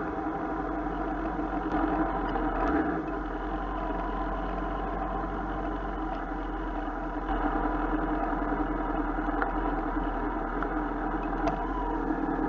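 Motorcycle engine running steadily at low speed, picked up by a cheap action camera mounted on the bike.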